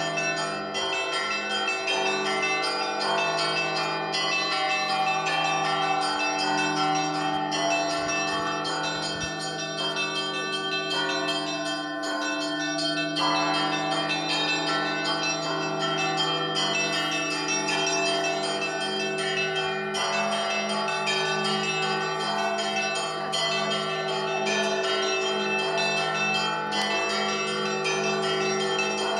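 Russian Orthodox church bells ringing a peal: smaller bells struck in quick succession over the steady hum of the larger bells, the pattern starting over about every four seconds.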